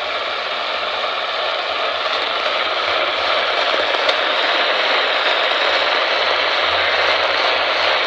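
Steady radio static hiss from a weather radio receiver, with no voice on the channel and a single click about four seconds in.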